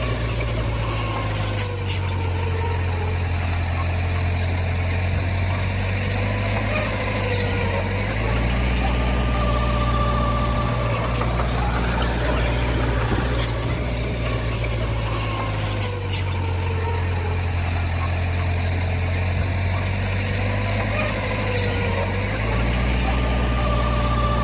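Diesel engine of heavy earthmoving machinery running under varying load, its low drone shifting pitch every several seconds, with a slowly wavering whine. Two sharp clanks, about 2 seconds in and again near 16 seconds.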